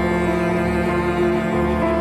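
Background music of slow bowed strings, a cello holding long notes that change every half second or so.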